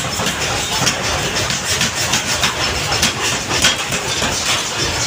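Forging-shop machinery running with a steady mechanical din, broken by frequent irregular metallic clanks.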